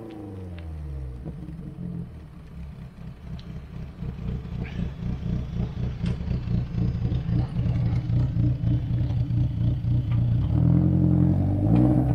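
Off-road pickup's engine dropping from high revs, then running at low revs with an even pulsing as the truck backs down the dirt slope. The revs pick up and the engine gets louder about ten and a half seconds in.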